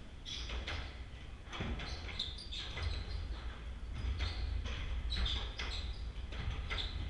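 Squash rally: a run of sharp cracks as the ball is struck by the rackets and hits the walls, with short high squeaks of sneakers on the hardwood court floor.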